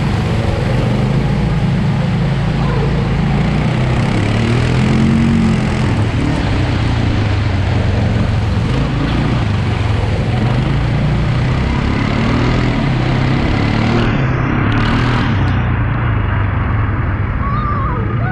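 ATV engine running under throttle, its pitch rising and falling as the quad bike is ridden through muddy water, over a steady rushing noise. The sound turns muffled for a few seconds near the end.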